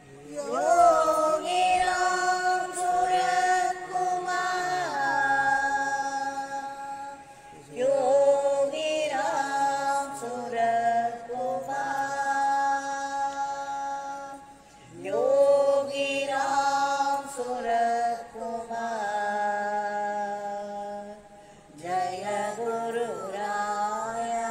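Devotional mantra chant, sung in long held phrases, a new phrase starting about every seven seconds.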